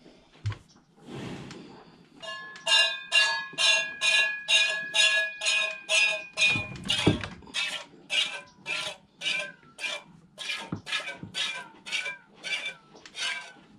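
Milk squirting into a stainless steel pail as a mini Jersey cow is hand-milked one-handed, in a steady rhythm of about two squirts a second. A ringing tone sounds under the first few squirts.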